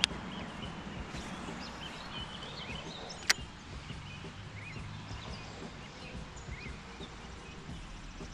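Open-air pond ambience: a steady low rumble, small birds chirping now and then, and two sharp clicks, one at the very start and a louder one a little past three seconds in.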